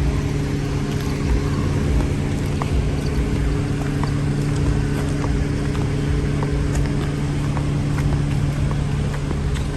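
Car driving, heard from inside the cabin: a steady engine hum over low road rumble, with a few faint ticks.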